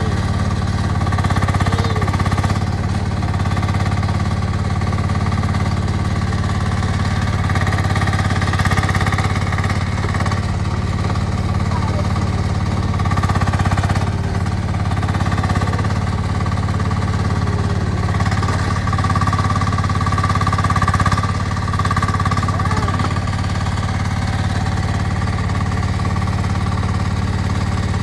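MACAO CT1 mini excavator's small diesel engine running steadily under load while it digs a trench, with a higher whine that swells now and then as the machine works.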